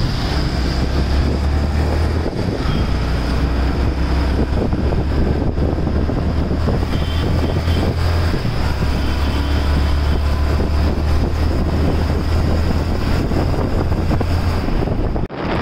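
Wind rushing over the microphone of a moving motorcycle, over a steady low rumble from the ride. The sound drops out briefly just before the end.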